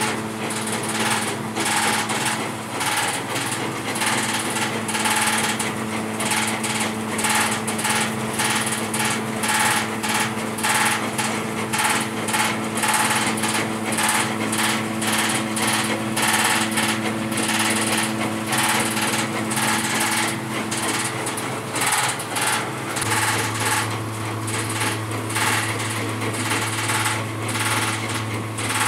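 Belt-driven rice sheller mill running at speed, powered by an electric motor (20 hp): a steady motor hum under a rapid, even clatter from the machine and its flat belts and pulleys. The low hum shifts slightly about three-quarters of the way through.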